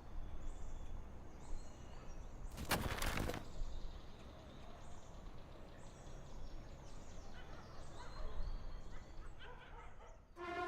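Faint background ambience with a low hum and small high chirps now and then. A short burst of noise comes about three seconds in.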